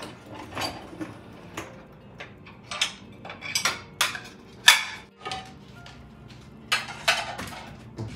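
Ceramic plates clinking and knocking against each other and the wire rack as they are lifted out of a dishwasher and stacked: a run of sharp clinks, the loudest about halfway through and another cluster near the end.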